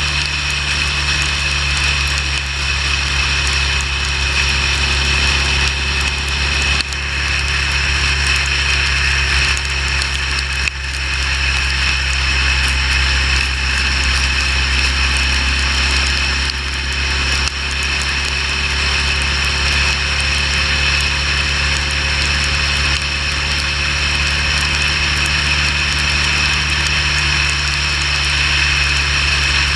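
Motorcycle cruising at a steady highway speed: a constant engine drone under wind and road noise.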